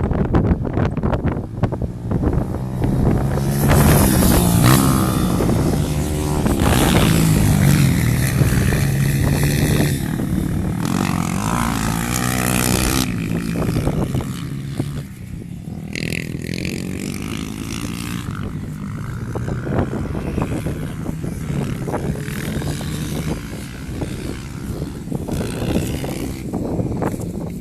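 Single-cylinder trail motorcycle engine running under way, its pitch rising and falling as the throttle is opened and eased off. It is louder in the first half, with wind hiss over it.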